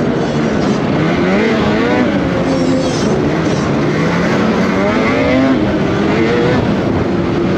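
Snowmobile engine running at speed on a trail, its pitch climbing as the throttle opens about a second in and again around five seconds in, falling back in between.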